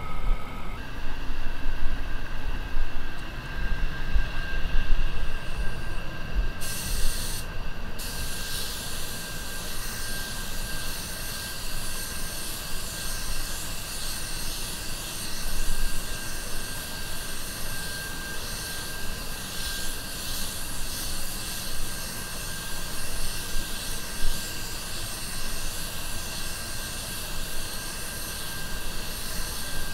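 Anest Iwata WS400 Supernova 1.3 spray gun hissing as it sprays, blending the base coat, over a steady low drone and a thin steady tone. The hiss grows brighter from about seven seconds in, after a short break.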